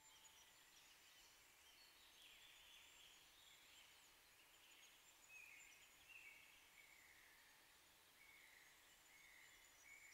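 Near silence: faint outdoor ambience with a soft hiss and faint, high, short chirping calls repeating from about two seconds in.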